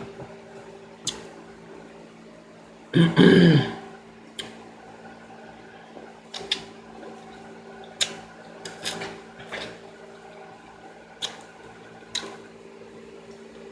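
Close-up eating sounds: short wet chewing clicks and mouth smacks about once a second, with a hummed "mmm" about three seconds in, over a faint steady hum.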